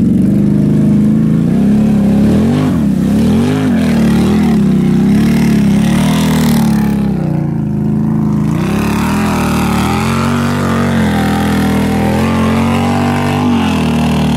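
Can-Am Renegade ATV's V-twin engine revving hard in repeated surges, about one a second, as the bogged-down quad spins its tyres in swamp mud trying to drive out. After about nine seconds it runs at steadier high revs with water and mud spraying.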